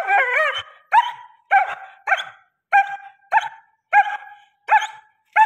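German Shepherd barking over and over, a steady run of short, fairly high-pitched barks nearly two a second, while it is held back by the chest; the first bark is drawn out with a wavering pitch, almost a yelp.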